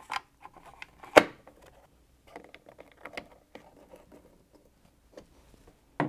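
A black plastic fridge hinge cover being handled and screwed down: one sharp click about a second in, then light clicks, taps and short scrapes.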